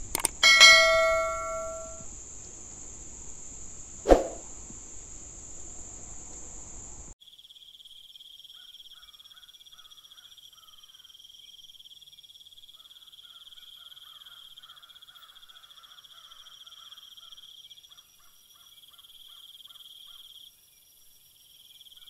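A subscribe-button animation chime rings about half a second in and fades over a second or so, and a sharp click follows about four seconds in, over a steady high insect drone. About seven seconds in, the background changes to a different steady high insect trill with faint chirps.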